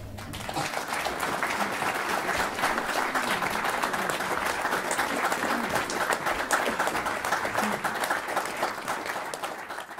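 Audience applauding after a langeleik performance: dense, even clapping that begins to die away near the end.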